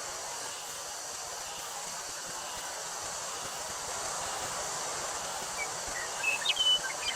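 Steady hiss of wind through a wheat field with the constant high drone of summer cicadas. Near the end a bird chirps a few short, bright notes.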